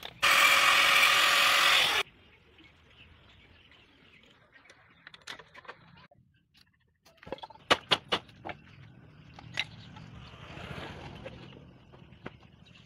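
A loud steady hiss for about two seconds near the start, then a quick run of sharp metal clinks as hand tools work on a dismantled motorcycle engine.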